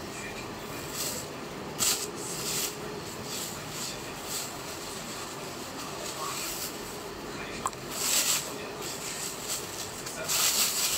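Thin plastic shopping bags rustling and crinkling as they are handled, in a few short bursts, with the longest near the end.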